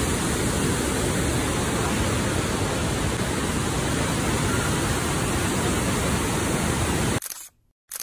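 Steady rush of falling water from the YS Falls cascades. It cuts off suddenly about seven seconds in, followed by a short camera-shutter click.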